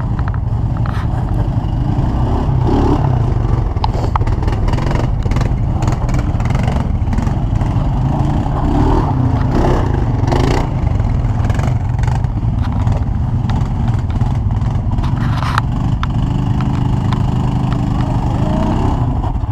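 ATV engine running under way over rough ground, with scattered knocks and rattles throughout.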